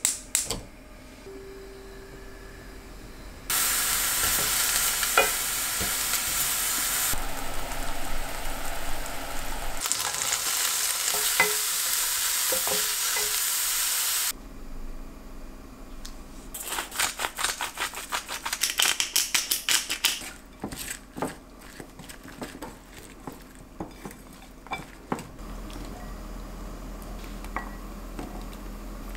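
Diced vegetables and mushroom slices sizzling in a hot frying pan, a steady loud hiss that cuts off suddenly about fourteen seconds in. Then a run of quick clicks and scrapes as a wooden utensil stirs the food against the pan.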